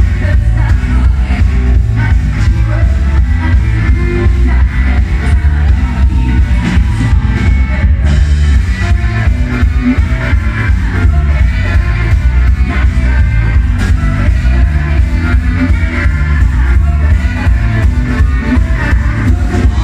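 Live rock band playing loud and heavy in the bass, with drum kit, bass guitar and singing.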